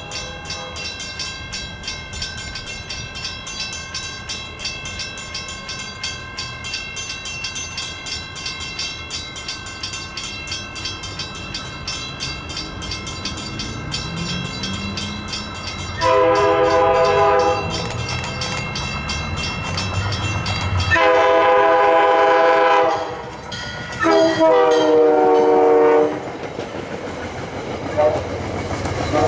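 A diesel passenger train approaches and passes, its engine rumble growing louder. The locomotive horn sounds the grade-crossing signal: two long blasts, a short one and a long one, then a brief toot near the end as the train arrives. Before the horn, a steady rapid ringing.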